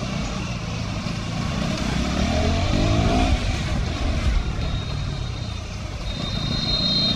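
KTM 200 Duke's single-cylinder engine running under way in town traffic, with tyre hiss on the wet road; the engine note rises briefly about two and a half seconds in. A thin high tone sounds over the last couple of seconds.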